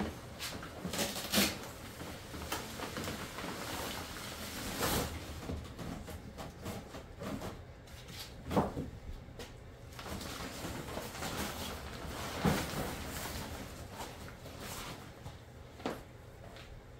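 A hard-shell rooftop tent being opened out by hand: several knocks and clunks from the shell and frame, with tent fabric rustling between them.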